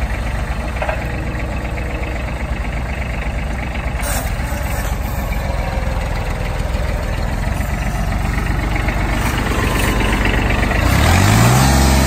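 Kubota B26 compact tractor's three-cylinder diesel engine running steadily at low speed, then revving up near the end and holding the higher speed.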